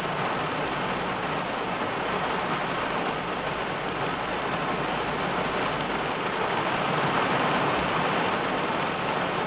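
Heavy rain falling on a car's roof and windscreen, heard from inside the car: a steady hiss of rain that swells slightly about six seconds in.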